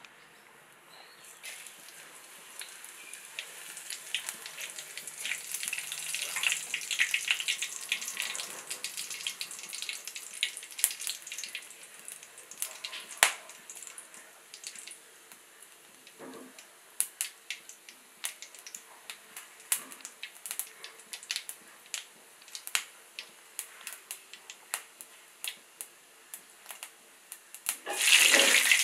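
Fennel seeds and a cinnamon stick frying in hot oil in a steel kadai, a soft sizzle with scattered pops and crackles. Near the end a much louder sizzle starts as a green chilli hits the oil.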